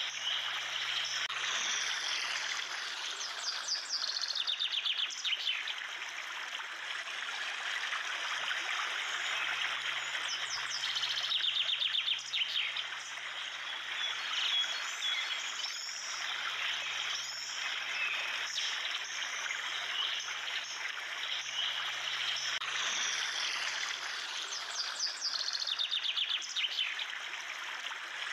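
Steady rush of running water with birds chirping, and rapid high trills coming in a few times.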